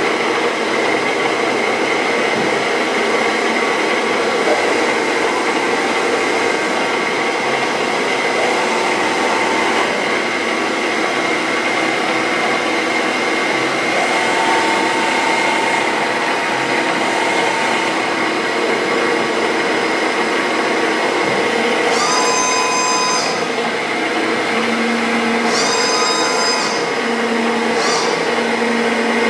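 Mikron WF 21 D tool milling machine running, a steady mechanical hum and whine of its motor and gearing while the table moves on its power feed. Short, higher-pitched whines cut in three times near the end.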